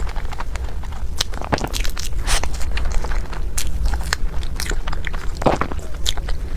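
Close-miked eating: big bites and chewing, with irregular wet clicks and crackles from the mouth and food.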